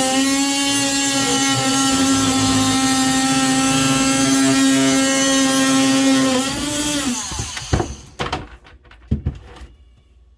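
Ryobi One+ 18V brushed oscillating multi-tool running with a steady high buzz as its blade cuts through drywall, then winding down and stopping about seven seconds in. A few sharp knocks follow.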